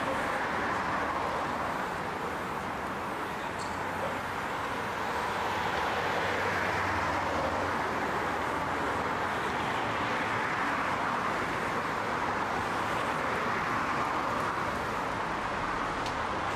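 Steady background noise of road traffic, an even, unbroken rush with no distinct events.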